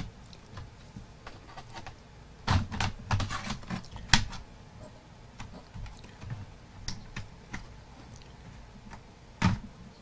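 Plastic retaining clips of a Dell Inspiron M5010 laptop's palmrest clicking and snapping loose as a plastic prying tool works around its edge. There is a run of sharp clicks a little over two seconds in, a louder snap about four seconds in, a few light ticks, and another snap near the end. The noise is normal as the palmrest comes away.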